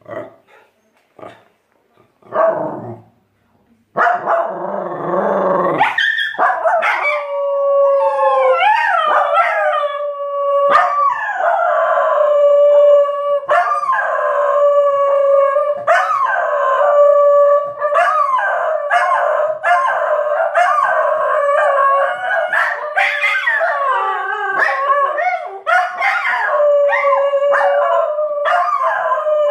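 Tibetan Terrier howling: long, wavering howls held near one pitch and repeated with short breaks, starting about four seconds in after a few brief quiet sounds.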